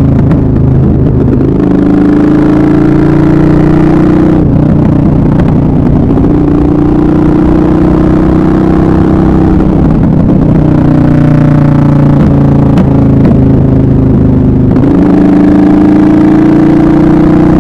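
Suzuki SV650S's 645 cc 90-degree V-twin engine running while riding, heard from on the bike. Its note holds steady or climbs slowly in stretches, with three short breaks where the pitch drops and then picks up again.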